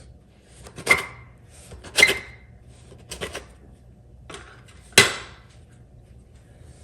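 Sharp knocks of a blade against a cutting board while dough is cut into sections, about five in all, with a short ring after the louder ones and the loudest about five seconds in.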